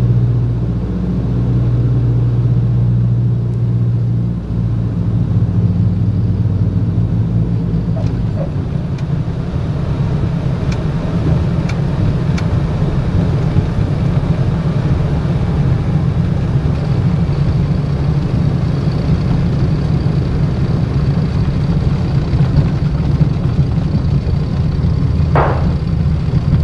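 Beech 18's twin radial engines and airframe heard inside the cockpit through a landing: a steady engine drone that changes at about four and a half seconds in, then a rougher rumble through the touchdown and rollout, with a few light knocks between about eight and thirteen seconds in.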